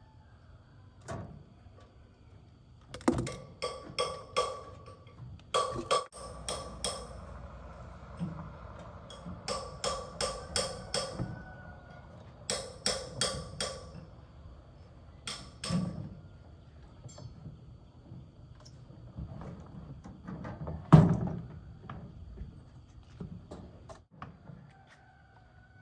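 Hammer strikes on a metal part, coming in quick clusters of four to six sharp, ringing blows with short pauses between them, then one heavier knock near the end.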